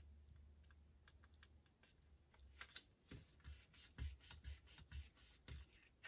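Faint, irregular taps and rustles of cardstock being folded and pressed together by hand, a glued tab being pressed into place, with most of the ticks in the second half.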